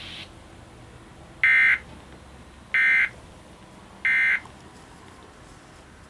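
Emergency Alert System end-of-message data tones from a television speaker: three short, identical buzzing digital bursts about a second and a half apart, marking the end of the alert broadcast.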